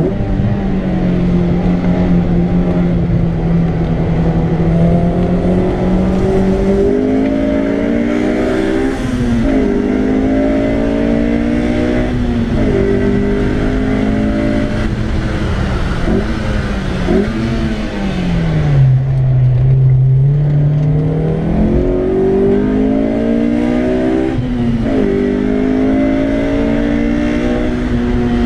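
Honda S2000's four-cylinder engine heard from inside the cabin, revving up again and again, climbing in pitch and falling sharply at each gear change. About two-thirds of the way through it drops to low revs, then pulls up again.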